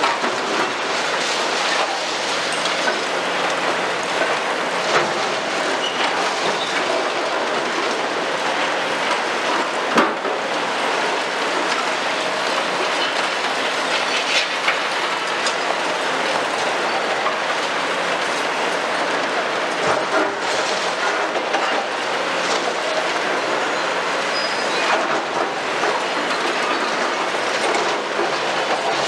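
Caterpillar and Hitachi excavators working a demolition rubble pile: engines running under a constant clatter and scraping of broken concrete and steel, with a sharper knock about ten seconds in.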